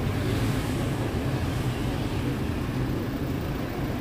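Steady road traffic rumble, the low drone of passing vehicles' engines and tyres.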